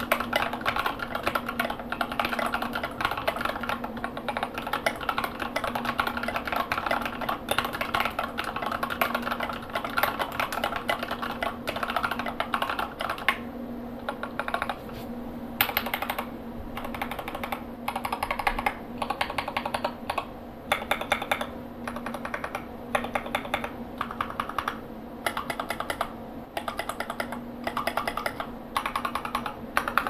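Mechanical keyboard typing on a Tofu WKL with lubed Gateron Yellow linear switches, SA-profile keycaps and GMK screw-in stabilizers. Fast continuous typing for about the first half, then short bursts of keystrokes separated by brief pauses.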